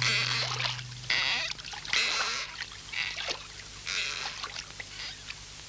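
Oar strokes swishing and splashing in water as a small boat is rowed, about one stroke a second, growing fainter toward the end.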